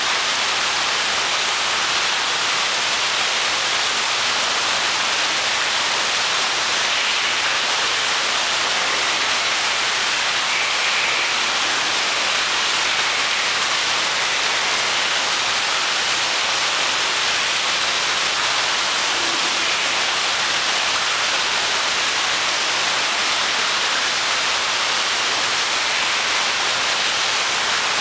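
Steady rush of falling water from the pool's water feature: an even, unbroken hiss.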